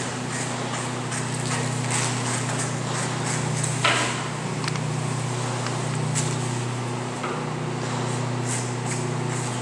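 Steady low machine hum, with scattered light clicks and knocks of tools and containers being handled on a wooden plank bench and one sharper knock about four seconds in.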